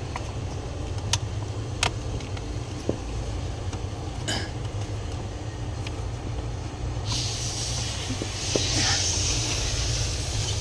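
A few sharp plastic clicks and knocks as a blend door actuator is worked into its housing under a car's dashboard, over a steady low hum. A steady hiss comes in about seven seconds in and runs on.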